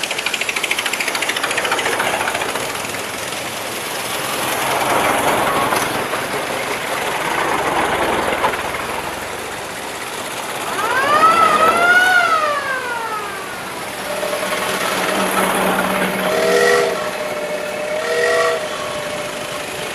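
Vintage cars driving past one after another, their engines and tyres swelling and fading. About eleven seconds in a horn sounds with a pitch that sweeps up and back down, and near the end a horn gives several short toots.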